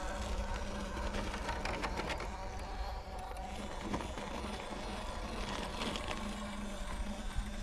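Buzzing whine of a radio-controlled car's electric motor, steady, with a few scattered short clicks.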